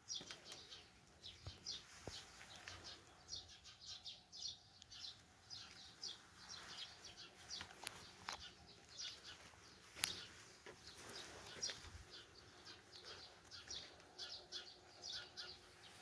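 Eurasian tree sparrows chirping faintly in quick clusters of short, high chirps, with one sharp click about ten seconds in.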